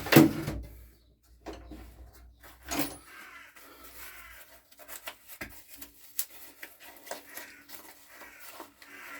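Knocks and clicks of small metal engine parts being handled and set down on a workbench, with the loudest knock at the very start and another about three seconds in, then lighter scattered clicks.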